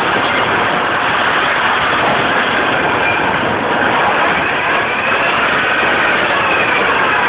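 Automated threading machine running: a steady, loud mechanical noise, with a faint whine that rises and falls midway.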